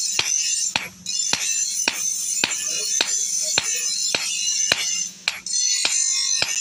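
Hand hammer striking a hot chaff cutter blade on an anvil in a steady rhythm, about two blows a second, with music underneath.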